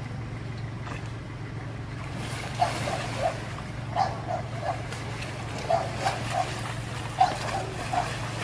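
A dog barking repeatedly, short barks in quick clusters of two or three, over a steady low hum.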